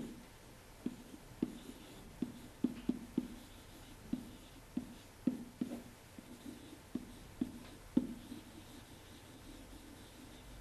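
Stylus knocking and tapping on the writing surface as words are handwritten, in irregular dull strokes about two a second.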